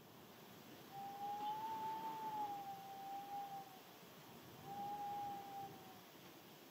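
Wind whistling in two long, steady tones, the first about three seconds long and the second shorter, over a steady hiss of rain.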